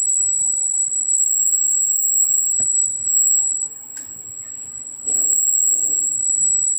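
Electronic buzzer in a home-made light-sensor (LDR and BC547 transistor) circuit on a 9 V battery, sounding a loud steady high-pitched tone. The tone cuts out a little past halfway and starts again about a second and a half later.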